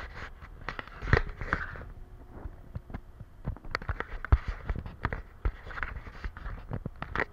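Storm rain striking the roof and windows of a bus: irregular sharp knocks and taps, several a second, with a few louder hits.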